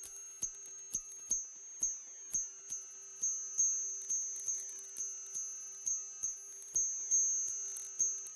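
Synthesized ultra-high-pitched steady tone with a fainter, lower tone beneath it, both pulsing slightly about twice a second: an electronic tinnitus-relief tone.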